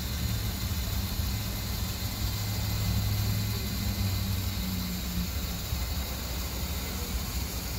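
Power awning on an Airstream travel trailer retracting under its electric motor, a steady low hum that eases a little about five seconds in. The awning is being run after new gas rafters were fitted to its arms.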